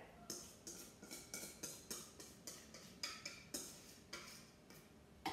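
Faint, quick taps and scrapes of a whisk against the inside of a stainless steel mixing bowl, about three a second, each with a short metallic ring, as batter is poured out of the bowl.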